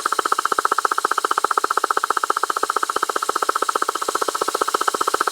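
Suzuki RG125's two-stroke engine being cranked over steadily on its starter with the spark plug out, so it spins freely without firing; a fast, even mechanical pulsing. The engine is being turned over to prime the oil pump and push oil through the oil line.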